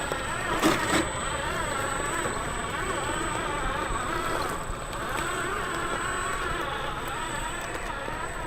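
Remote-control truck's electric motor and gearbox whining as it drives, the pitch rising and falling with the throttle, with a couple of knocks about a second in.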